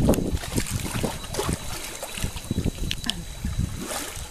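Muddy river water splashing and sloshing as elephants, a baby among them, thrash and wade in it, with irregular low thumps and short crackles of spray.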